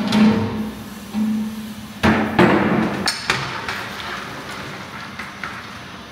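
Metal clanks and knocks from a large cooking pot, as its metal lid comes off and a long-handled ladle strikes and scrapes inside it. The loudest knocks come about 2 and 3 seconds in. Background music plays under them.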